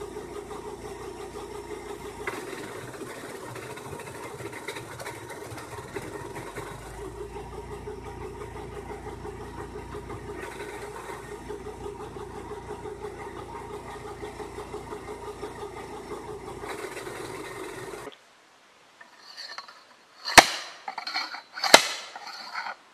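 Engine-driven wood chipper running steadily with an even drone as a branch is fed through. It stops, and near the end a slide-hammer log splitter strikes a log twice, sharp loud impacts about a second and a half apart.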